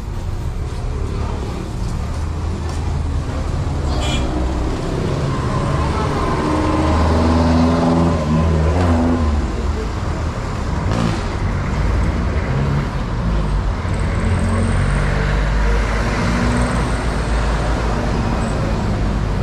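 Road traffic: cars and trucks passing with a steady low rumble. One vehicle's engine goes by loudest about seven to nine seconds in.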